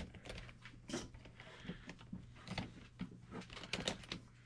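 Faint scattered clicks and taps of small plastic and metal parts being handled on a radio-controlled truck's axle assembly, over a steady low hum.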